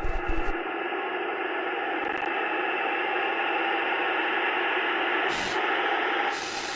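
Steady, muffled hiss like radio static, with no clear tune or beat.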